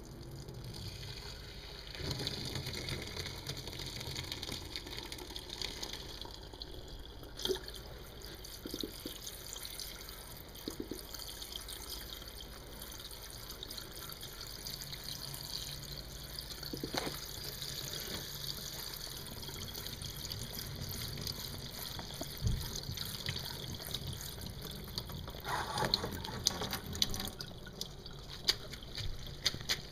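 Water running steadily into a kitchen sink, with a few knocks and clicks and a run of quick clicks near the end.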